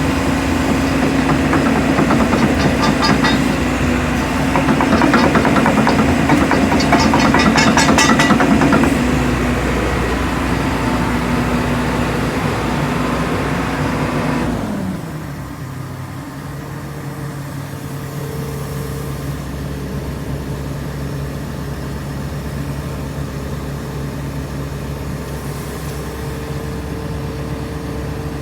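2019 JCB 220XLC tracked excavator's diesel engine running at raised revs, with a rapid clattering rattle over it for several seconds. About halfway through, the revs drop away and it settles to a quieter, steady idle with a faint whine.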